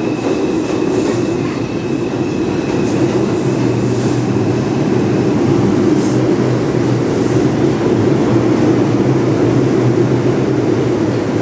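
R142 subway train running past the platform: a steady rumble of steel wheels on rail with a few faint clicks at rail joints, and a faint high steady tone in the first half.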